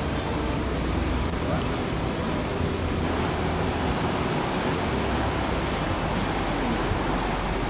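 Steady rushing of a mountain river's whitewater rapids, the water noise shifting slightly about three seconds in.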